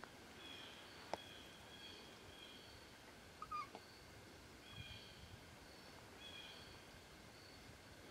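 Faint forest ambience with a high-pitched chirring chorus that pulses on and off. A single sharp tick comes about a second in, and a brief squeak about three and a half seconds in.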